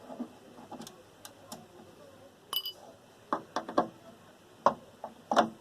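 Scattered light clicks and knocks, irregularly spaced, with a short metallic ring about two and a half seconds in.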